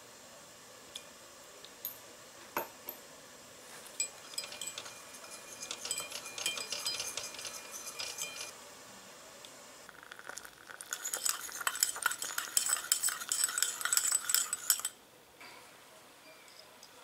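Small wire whisk beating liquid in a miniature ceramic saucepan, its wires clinking and scraping rapidly against the pan. It goes in two stretches with a short pause between, the second louder, after a few single clinks at the start.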